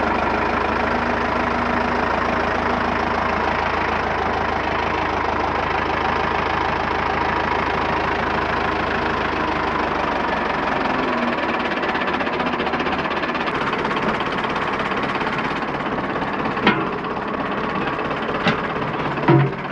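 Fendt tractor's diesel engine running steadily while working the front loader. Its deepest tone drops away about ten seconds in, and a few sharp knocks come near the end.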